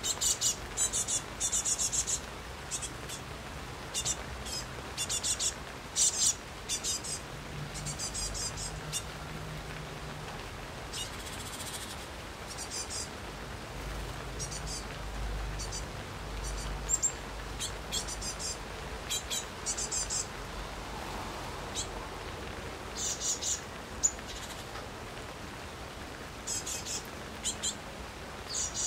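Steady light rain in a backyard, with a small bird chirping over it in short, high bursts and quick trills, repeated every second or two, some bursts coming in rapid runs.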